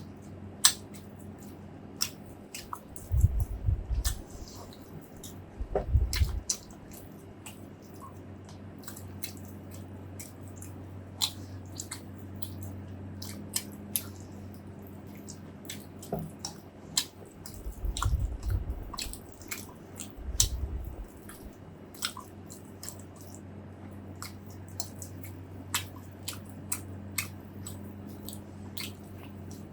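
A person chewing and biting food close to the microphone: wet, squishy mouth sounds with many sharp clicks, and four brief low thuds spread through the stretch. A faint steady hum lies underneath.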